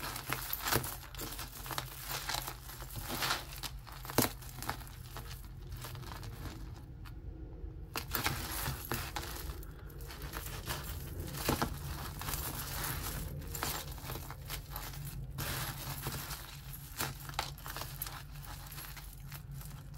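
Tangled bead necklaces and metal chains being picked apart by hand on a tabletop: irregular small clicks and rattles of beads and chain links, with a short quieter pause in the middle.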